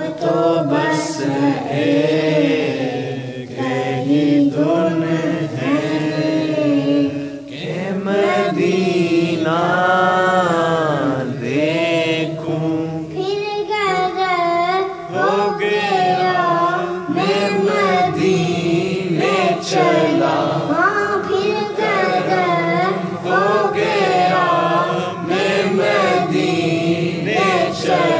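A boy's voice singing an Urdu naat in praise of the Prophet, the melody rising and falling in long phrases over a steady low drone.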